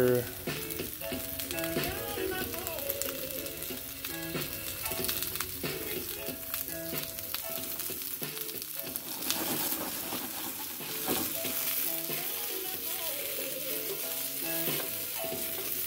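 Sliced bell peppers sizzling steadily in hot olive oil in a skillet, with soft background music playing.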